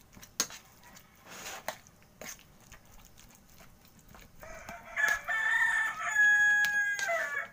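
A metal spoon clinks and scrapes against a plate while grilled eggplant is mashed. From about four and a half seconds in, a rooster crows once, a single long call of about three seconds that ends in a falling note; it is the loudest sound.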